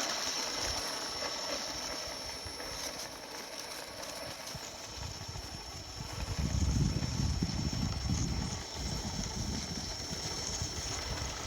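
Electric motor of a home-built RC snowmobile running slowly, with a steady high whine. About halfway through, a few seconds of low, uneven thumping, such as footsteps crunching in snow.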